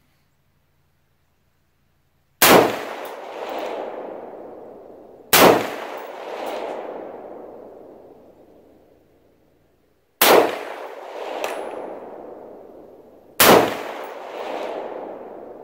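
Four rifle shots from an AR-15 chambered in .223 Wylde firing Wolf 55-grain steel-case ammunition, unevenly spaced about three to five seconds apart. Each shot is followed by a long tail that swells again about a second later and fades over two to three seconds.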